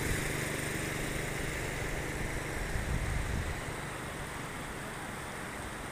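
Floodwater rushing in a shallow sheet over a road, with wind on the microphone. A low engine hum runs underneath and fades out about three and a half seconds in.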